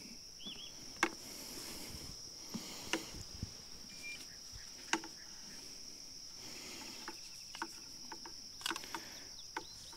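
Insects chirring in a steady, unbroken high band, with a few sharp clicks scattered through.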